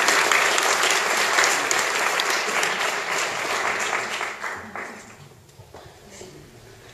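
Audience applauding, the clapping dying away about two-thirds of the way through, with a few last scattered claps.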